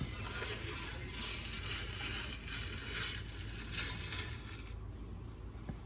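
Membrane being peeled off the bone side of a rack of baby back pork ribs: an uneven tearing, crackling noise that drops away about five seconds in.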